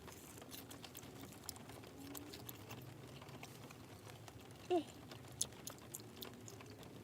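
Close-mic chewing and lip-smacking: a run of small, irregular wet clicks from a mouth eating. About five seconds in, a short pitched sound from the voice stands out.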